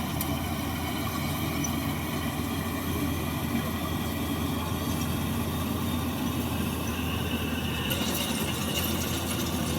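Rice combine harvester running steadily under load, its engine and threshing machinery droning together; a higher whine grows stronger about eight seconds in.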